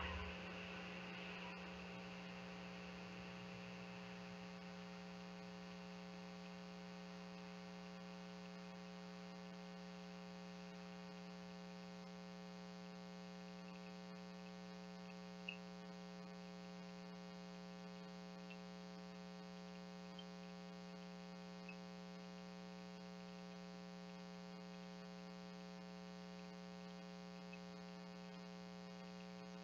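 Steady, faint electrical hum with a row of even overtones, with a small tick about halfway through.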